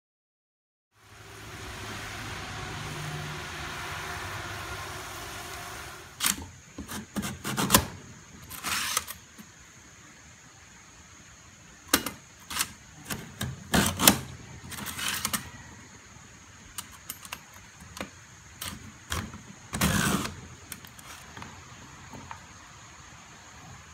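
A propane turkey-fryer burner flame hissing steadily for a few seconds. Then come scattered knocks, clicks and rattles as a hand-press French fry cutter slices potatoes and the cut pieces are handled on a cutting board.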